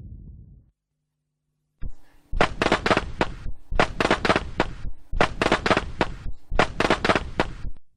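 Firecracker sound effect: a low rumble fades out, then after a short silence and a single crack come four rapid strings of sharp popping bangs, each about a second long.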